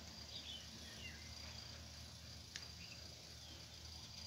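Faint background with the steady high-pitched whine of an insect such as a cricket over a low hum, a few faint chirps, and a single click about two and a half seconds in.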